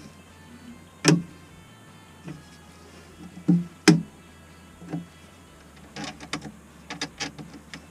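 Hammer striking a nail into a wooden floor joist: five separate blows spread over the first five seconds, then a run of quicker, lighter taps and clicks near the end.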